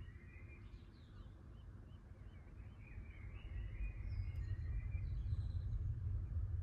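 Birds chirping at dawn, with a low rumble of distant thunder building and growing louder from about halfway in.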